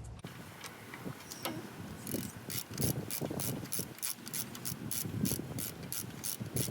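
Hand ratchet clicking as it runs in the bolts of a replacement front wheel hub assembly, the clicks coming in a steady rhythm of about three a second from about two seconds in.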